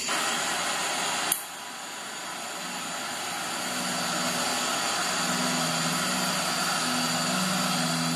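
TIG welding arc giving a steady hiss and buzz, with a sharp click about a second in, then a low hum joining the hiss.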